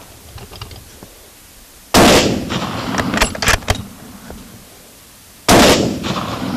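Two rifle shots about three and a half seconds apart from a scoped bolt-action rifle, each followed by a short decaying echo. Between the shots come several short metallic clicks of the bolt being worked to chamber the next round.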